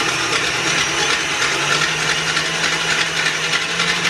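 KitchenAid stand mixer running, beating muffin batter of wet ingredients: a loud, steady motor whir with a low hum that rises slightly in pitch partway through.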